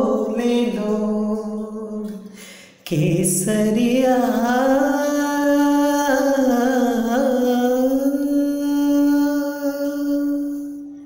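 Background song: a solo voice singing long, drawn-out notes that bend and glide in pitch. It breaks off briefly about three seconds in and fades out at the end.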